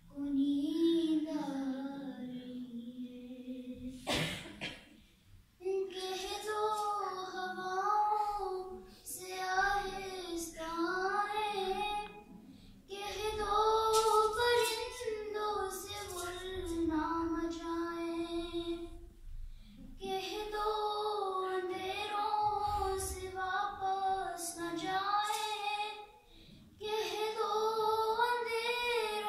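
A solo female voice chanting a salam, a devotional recitation, in long melodic phrases with wavering held notes and short pauses for breath between them. No instruments accompany it.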